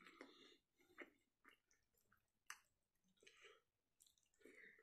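Faint close-up eating sounds: wet chewing with sharp mouth clicks and smacks, and fingers squishing rice and fish curry on the plate.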